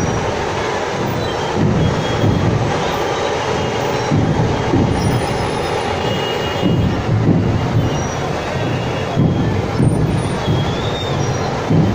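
Loud, dense din of a street procession: a packed crowd, with drum beats thudding irregularly under a steady roar.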